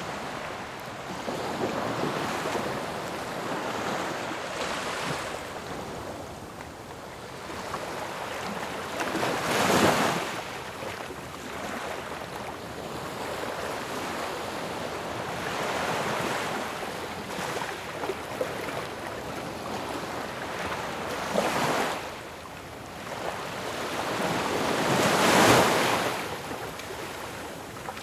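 Ocean waves surging and breaking, a steady rush of surf that swells and falls every few seconds, with the strongest breaks about ten seconds in and near the end.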